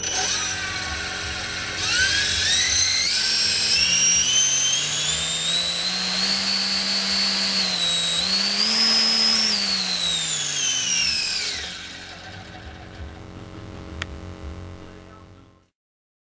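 Electric model-airplane motor spinning a Hobby Lobby three-blade scale propeller on a test stand: a high whine that jumps up about two seconds in and climbs as the throttle is advanced. It dips briefly, peaks about nine seconds in, then falls away as it is throttled back and fades out as the prop winds down.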